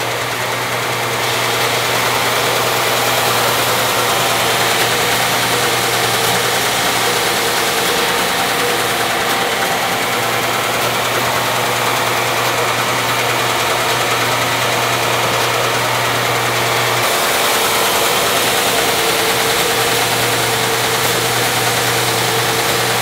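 Grizzly wide-belt sander running with its conveyor feeding a maple board under a coarse 100-grit belt: a steady machine hum under a broad sanding hiss that gets louder about a second in. The hum drops out briefly about three quarters of the way through.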